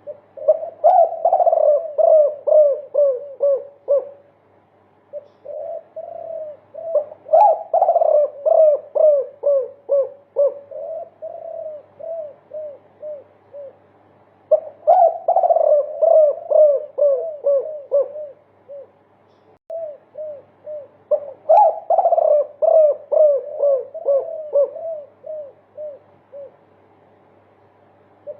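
Spotted dove (derkuku) cooing in its long 'multi kuk' song: repeated bouts of quick coo notes, about ten in a row, each bout strongest at its start and trailing off, with pauses of a second or two between bouts.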